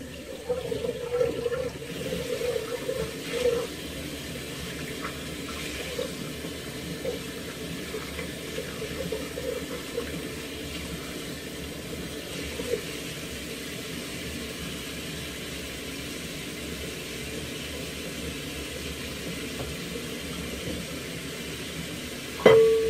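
Bathroom tap running steadily into a sink: a constant rush of water with a faint wavering whine in it. Just before the end a sudden louder steady hum cuts in.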